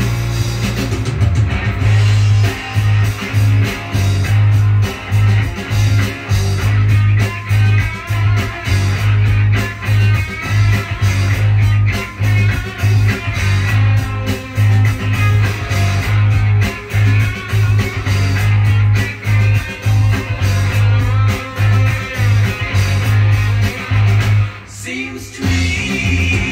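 Guitar-driven rock record played from a vinyl LP through a Nagaoka MP-200 cartridge: electric guitar over bass and drums with a steady beat. The music drops away briefly near the end.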